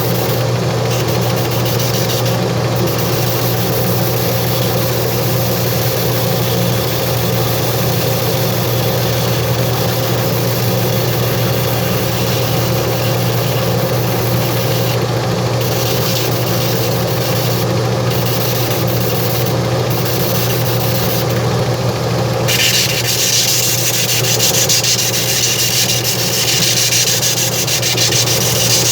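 Electric sanding or grinding machine of a shoe-repair bench running steadily with a constant hum. About 22 seconds in, a louder hissy rasp joins as the sole material is sanded against it.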